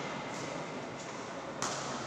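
A single sharp crack of a badminton racket striking the shuttlecock, about one and a half seconds in, over steady background noise.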